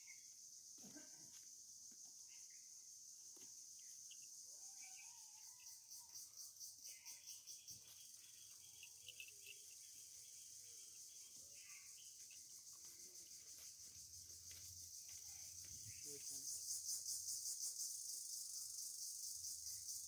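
Steady, high-pitched insect chorus shrilling, pulsing at times and growing louder near the end.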